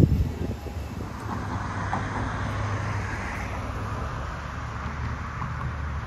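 Steady outdoor road-traffic background, with wind rumbling low on the microphone.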